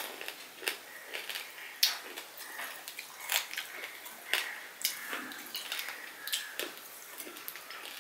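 Close-up chewing and wet mouth clicks from eating a handful of rice with greens, mixed with soft squishing of fingers working rice on a steel plate. The irregular clicks come several times a second.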